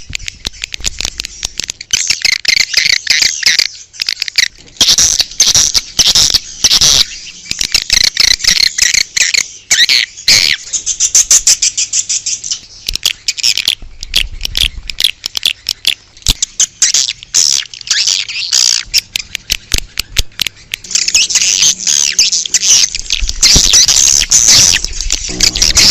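Recorded calls of edible-nest swiftlets: dense strings of quick, high chirps and twittering chatter, the 'outdoor' lure call played to draw swiftlets to a nesting house.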